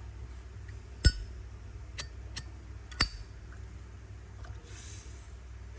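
Zippo lighter being handled: four sharp metallic clicks with a brief ring, the loudest about a second in, as the hinged lid is flicked and snapped against the case.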